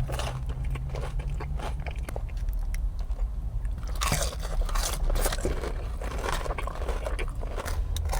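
Close-up crunching and chewing of a crispy breaded fried mozzarella stick, with many short crisp crunches and a dense cluster of them about four seconds in. A steady low hum runs underneath.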